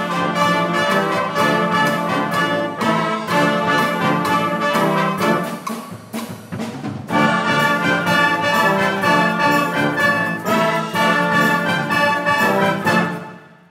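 Brass band playing a hymn in full chords: trumpets, trombones and tubas together. The sound thins briefly about six and a half seconds in, comes back louder, and breaks off in a short pause just before the end.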